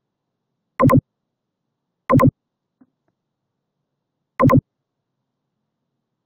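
Three short, identical buzzy electronic tones, each a quick double pulse: the first about a second in, the next a little over a second later, the last about two seconds after that.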